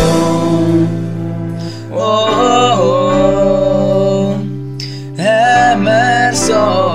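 Song with a singing voice over guitar accompaniment; the singer holds two long phrases, one starting about two seconds in and another about five seconds in.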